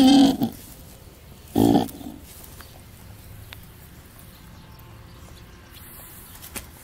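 A young goat bleating twice, two short pitched calls about a second and a half apart.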